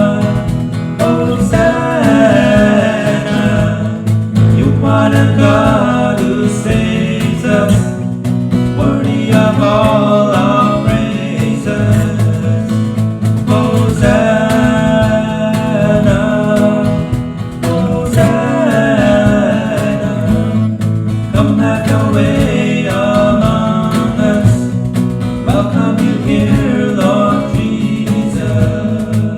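A worship song sung by a voice over acoustic guitar accompaniment.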